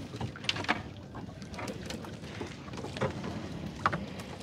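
Low, steady rumble of a small fishing boat while a gill net is hauled in, with a few short knocks scattered through it.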